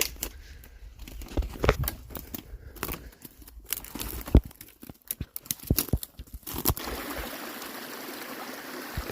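Footsteps crunching and snapping over twigs and dry leaf litter, a quick irregular run of sharp cracks. About seven seconds in this gives way to the steady hiss of trickling, running water.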